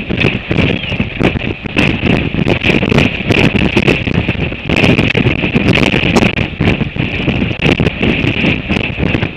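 Very strong, gusty wind of 40 to 60 knots buffeting an exposed outdoor microphone. It makes a loud, unsteady rumble with a steady hiss over it and many sharp crackles and knocks.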